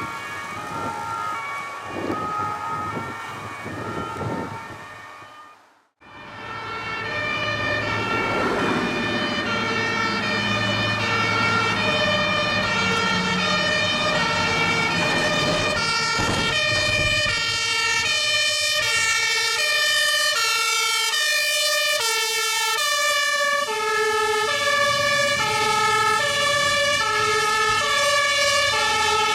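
German two-tone sirens (Martinshorn) of fire brigade vehicles responding on an emergency call. There is a cut about six seconds in; after it the sirens are louder, and two or more sound at once out of step over the running of a truck engine.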